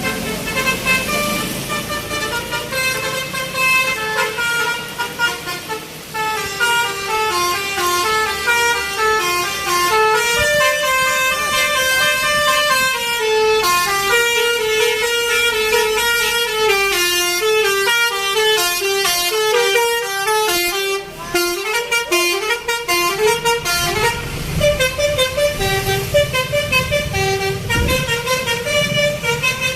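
Bus 'telolet' musical horn playing quick tunes, several horn tones sounding together and stepping from note to note in runs that rise and fall. A low rumble joins it in the last few seconds.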